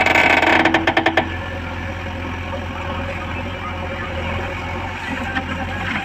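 JCB 3DX backhoe loader's diesel engine running steadily under load as the backhoe arm digs into wet earth, with a burst of rapid rattling over a higher tone in the first second or so.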